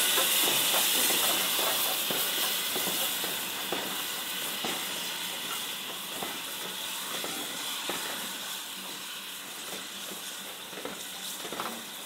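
Ivatt Class 2 2-6-0 steam locomotive hissing steam as it pulls away with its train, the hiss slowly fading as it draws off. Scattered clicks come through as the coaches roll past.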